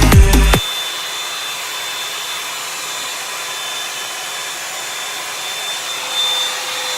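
Electronic music with a beat cuts off about half a second in, giving way to a hair dryer running steadily: an even blowing rush with a faint high whine.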